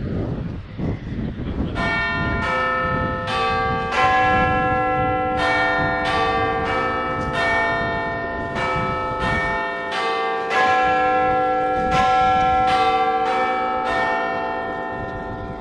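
Bells ringing: a run of struck bell notes, about one every half second, starting about two seconds in, each ringing on into the next.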